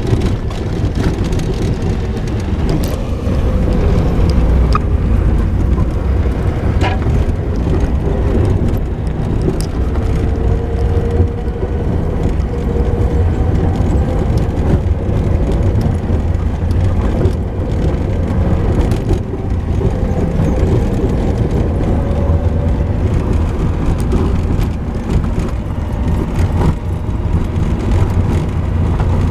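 Jeep driving along a rough dirt trail: a steady low engine and tyre rumble with a faint engine tone that wavers slightly in pitch, and scattered clicks and knocks over the bumps.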